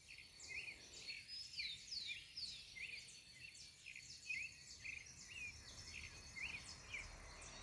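Dawn chorus of small birds: many short chirps and quick downslurred notes repeated several times a second, overlapping, over a steady high thin tone.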